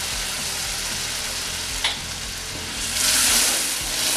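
Hot water sizzling and hissing as it hits semolina roasted in ghee in a non-stick pan. There is a sharp click a little under two seconds in and a louder burst of sizzling around three seconds in, and a spatula stirs the bubbling mixture near the end.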